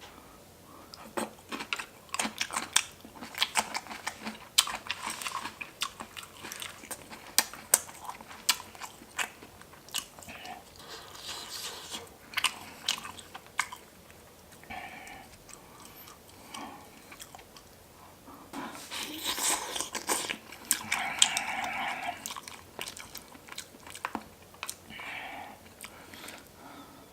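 Close-miked eating: chewing and crunchy biting with many sharp clicks through the first half, then a longer rush of noise about two-thirds in.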